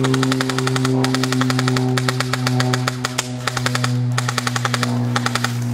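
Airsoft rifle firing long full-auto bursts of rapid, evenly spaced shots: about three seconds of fire, a short pause, then another burst of about a second near the end. A steady low hum runs underneath.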